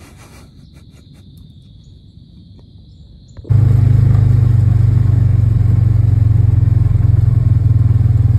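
A motor running loud and steady with a low hum, cutting in suddenly about three and a half seconds in. Before it there is only a faint low rumble with a few light clicks.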